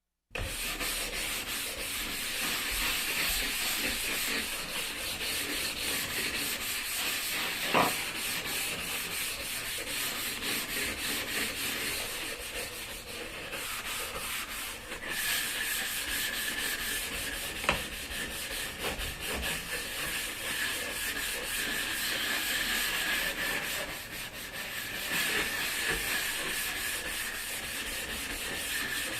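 Brush scrubbing a floor in quick, continuous strokes, with two sharp knocks, one about eight seconds in and one near eighteen seconds.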